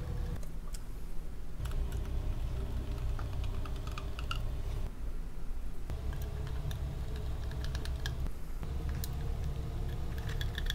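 Small clicks and ticks of a hand screwdriver driving small metal screws, fastening a fan to a panel of a fume extractor's filter housing, over a steady low background hum.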